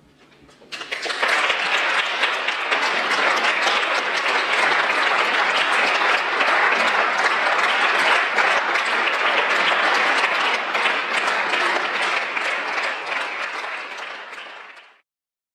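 Audience applauding: clapping breaks out sharply about a second in, holds steady and full, eases a little near the end, then cuts off abruptly.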